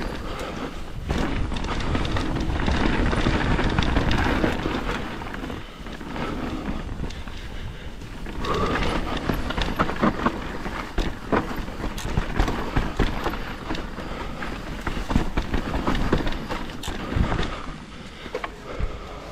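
Mountain bike riding over rough trail: tyres rolling over dirt and rocks, with the chain and frame rattling and frequent sharp knocks as the suspension takes hits.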